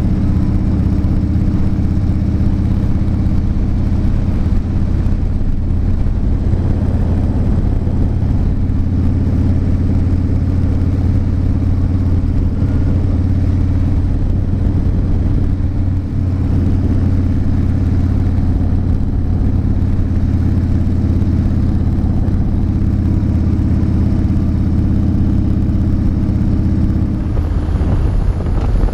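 2012 Harley-Davidson Fat Bob's air-cooled V-twin running at a steady cruising speed, heard from the bike with road and wind noise; the engine note changes about a second before the end.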